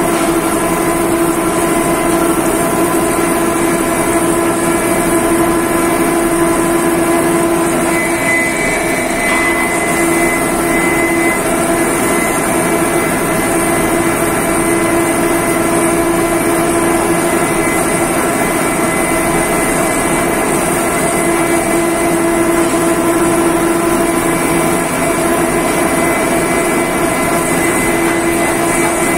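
D51Y-1000 ring rolling machine running, a steady loud mechanical hum and drone. A slightly higher whine comes up for a few seconds about eight seconds in.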